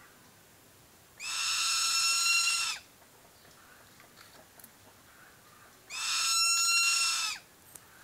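Eagle giving two long, high whistled calls about three seconds apart, each lasting about a second and a half at a steady pitch and dropping slightly at its end.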